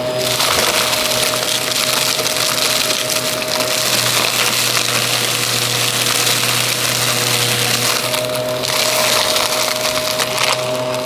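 Aspiron vacuum cleaner running steadily, its motor humming under a continuous crackle of crunchy debris being sucked up. The hiss dips briefly about eight seconds in and again near the end.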